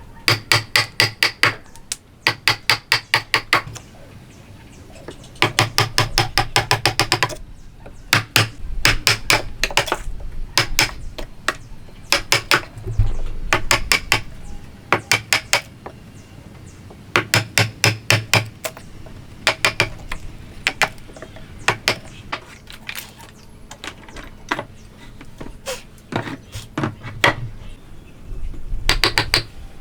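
Hammer blows in quick runs of several strikes a second, each run lasting a second or two, with short pauses between runs.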